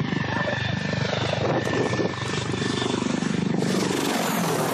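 Mi-28 attack helicopter flying low, its rotor beating rapidly with a steady engine tone underneath; the sound changes abruptly about three and a half seconds in.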